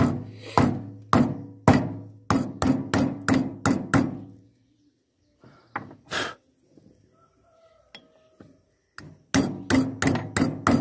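Hammer blows on an old bearing used as a driver, seating a new oil seal into a VW air-cooled gearbox's axle bearing housing: metal-on-metal strikes at about two a second, quickening toward four seconds in. A pause with a few light metal clinks follows, then a fast run of blows about a second before the end.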